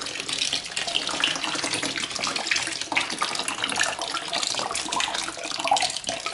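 Contact lens solution pouring in a thin stream into a large tub of glue mixture: a steady splashing trickle, with the surface bubbling up as the stream hits it.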